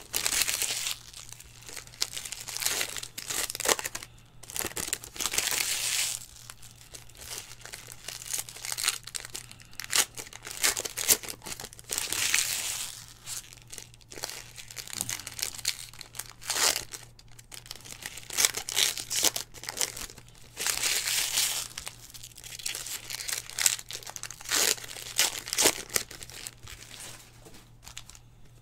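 Trading card pack wrappers torn open and crinkled by hand. The rustling and crackling comes in irregular bursts every second or two, with short clicks between them.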